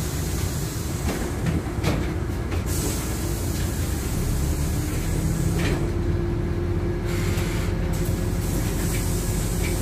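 Inside a LiAZ-5292.71 city bus standing with its doors open: a steady low rumble and hiss of the running bus, with a faint steady whine coming in about halfway and a couple of short knocks.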